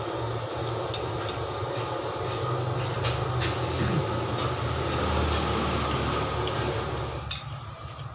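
A steady low mechanical rumble with a hiss, which grows somewhat louder about halfway through and then cuts off suddenly near the end with a sharp click. A few light clicks of a spoon on a plate come in between.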